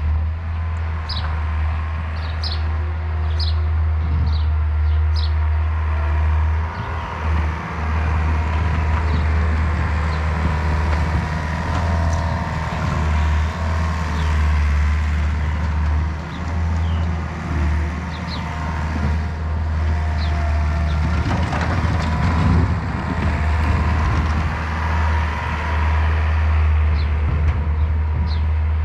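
A vehicle engine running steadily with a deep, even hum and small dips in loudness. A few short high chirps come in the first few seconds and again near the end.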